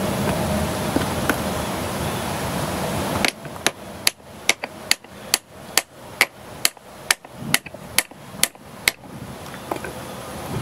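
A steady background noise cuts off about three seconds in. About a dozen sharp hammer strikes on steel follow at a little over two a second, tapping a new pitman arm onto the splined output shaft of a steering gearbox to seat it.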